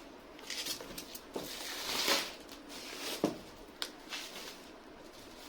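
Rustling and crinkling of packaging covers being handled and pulled off, with a couple of sharp clicks or taps a little past the middle.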